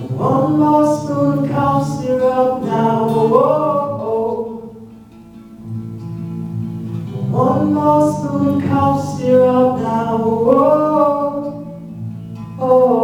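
Wordless sung vowels in two long phrases, the pitch gliding up and down, over steady guitar chords.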